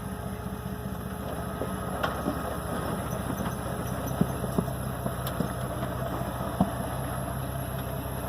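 An off-road vehicle's engine running steadily at idle, with a few sharp clicks or knocks over it.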